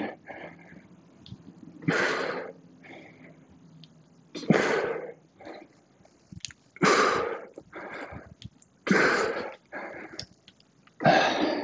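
A man breathing hard through goblet squats: five forceful exhales about two seconds apart, one per rep, each followed by a shorter, quieter inhale.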